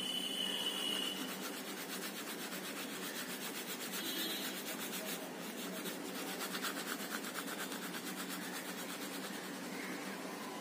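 A dark pastel stick rubbed back and forth over paper thickly coated in oil pastel: a steady, dry scratchy rubbing made of quick strokes.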